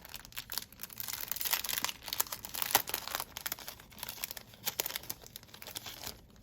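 Crinkling sticker packaging being handled and pulled open, a dense run of sharp, irregular crackles.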